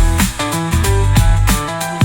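Background music with a steady beat, bass and melodic notes.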